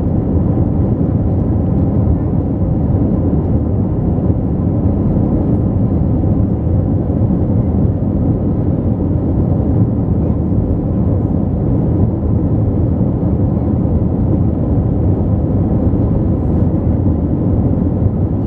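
Steady, low cabin noise of a jet airliner in flight, the engines and rushing air heard from inside the cabin at a window seat.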